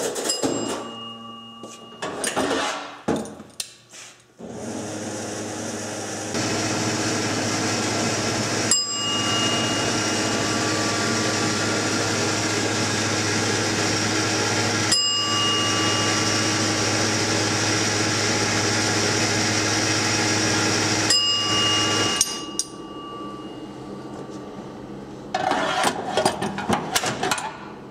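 Restored vintage gas pump running, its counter wheels driven by an electric gear-reduction drill: a steady motor whir for about seventeen seconds, with a bell dinging three times about six seconds apart. Mechanical clicks and clunks of the pump's reset and nozzle handle come before it starts and after it stops.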